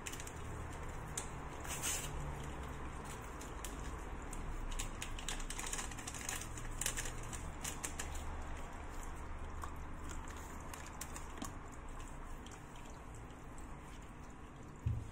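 Light rustles and scattered clicks of a baking powder packet being emptied into a glass mixing bowl and the soft dough mixture being worked by hand, over a low steady hum.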